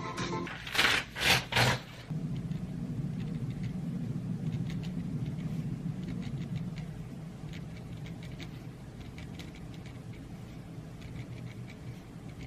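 A pen scratching across paper in faint short strokes over a steady low hum, after three short loud rustling noises about a second in.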